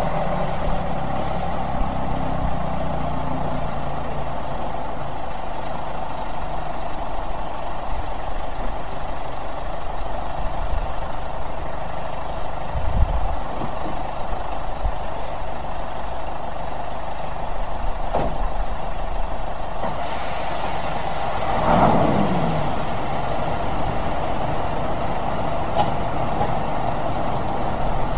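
Tow truck's engine running steadily, with a brief falling squeal about three-quarters of the way through.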